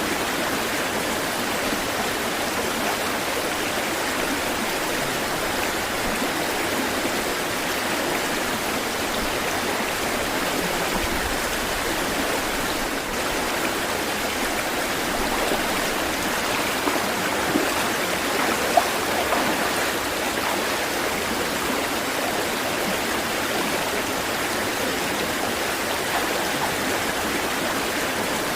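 Steady rushing of flowing water, even and unbroken, with a few brief louder ticks about two-thirds of the way through.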